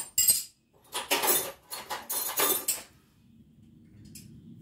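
Hand tools being rummaged through, rattling and clattering in several bursts over the first three seconds, then quiet apart from a small click near the end.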